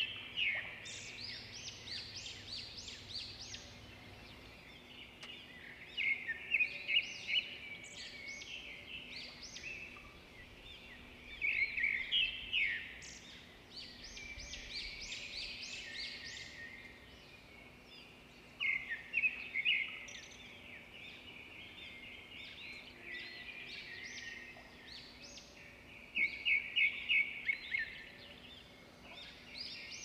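Songbird song in a nature ambience: a loud phrase of quick, high notes comes five times, about every six or seven seconds, over fainter chirping of other birds.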